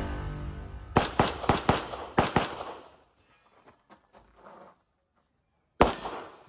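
Background music fading out, then a rapid string of about six pistol shots within a second and a half during a shooting drill, followed near the end by one more single shot.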